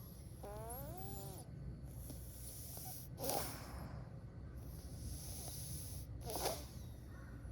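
Cat sneezing twice, about three seconds apart, each a short sharp burst, over a steady low hum.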